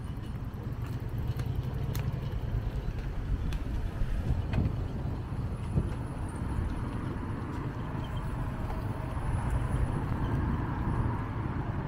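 City-street ambience: a steady low rumble of road traffic, with a few scattered light clicks and taps.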